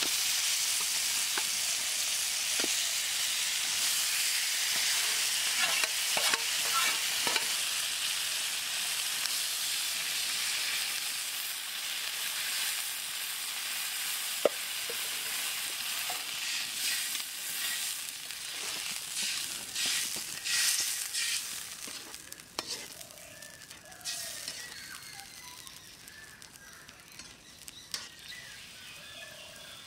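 Spiced gravy and fried carp pieces sizzling in a hot iron wok over a wood fire, with the clicks and scrapes of a slotted spoon stirring. About two-thirds of the way through, the sizzle dies down as the added water brings the curry to a simmer.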